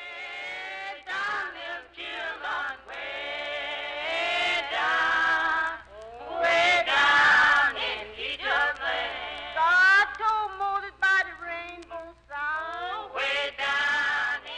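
Unaccompanied hymn singing: long held notes with a wavering pitch, sung in phrases with short breaks between them, loudest around the middle of the passage.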